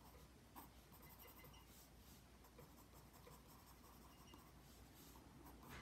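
Faint scratching of a pencil moving over toned paper in short shading strokes, laying in fur texture.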